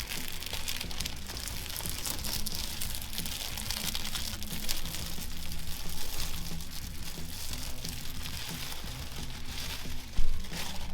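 Plastic packaging crinkling and rustling continuously as a new RC truck is unwrapped, over quiet background music. There is one sharp thump about ten seconds in.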